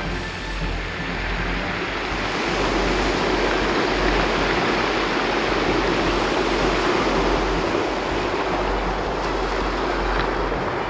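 Sea waves breaking and washing up a shingle beach. The rush of surf swells a couple of seconds in and eases off near the end.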